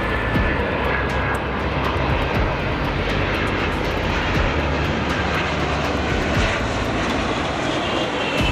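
Embraer KC-390's twin IAE V2500 turbofan engines as the transport flies low past on landing approach, gear down: a steady rush of jet noise with a faint whine sliding down in pitch as it passes.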